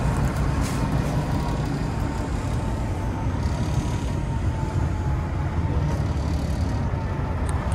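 Diesel engine of a 1996 Ford LTL9000 dump truck idling, a steady low rumble with a faint thin whine held above it.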